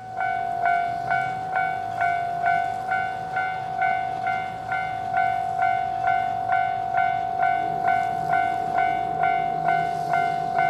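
Japanese railway level-crossing warning bell sounding its 'kan-kan-kan' alarm, an evenly repeated ringing tone at about two strikes a second.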